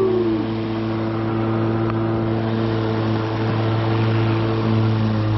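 Black & Decker cordless electric lawn mower running while mowing grass: the motor and blade give a steady, even hum that holds one pitch throughout.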